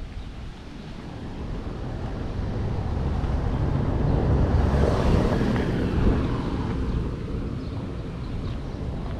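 A road vehicle passing close by, its engine and tyre noise swelling to a peak about halfway through and then fading away.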